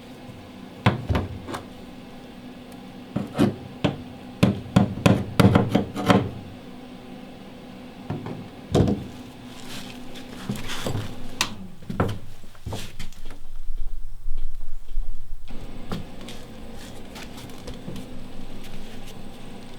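A run of sharp knocks and bangs in quick irregular clusters for about the first six seconds, one more knock near nine seconds, then irregular rumbling and shuffling noise.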